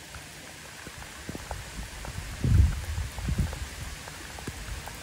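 Heavy rain pouring down onto parked cars and wet pavement as a steady hiss. A few low rumbling thumps come through about halfway in, louder than the rain.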